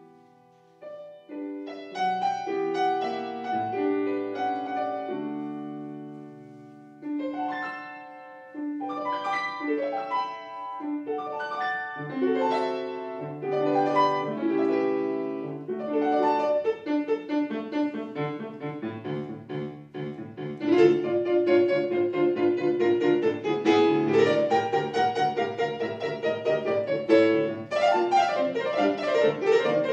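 Solo classical music played on an Estonia grand piano: slower, held chords for the first part, then a louder, fast passage of quick repeated notes and runs from about two-thirds of the way in.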